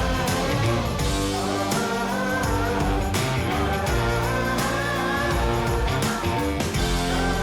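Background rock music with guitar and a steady beat, with some singing.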